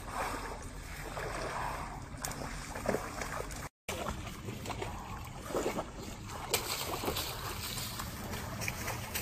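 Icy lake water sloshing and splashing as a man wades chest-deep through broken ice, over a steady wind rumble on the microphone. The sound drops out briefly about four seconds in.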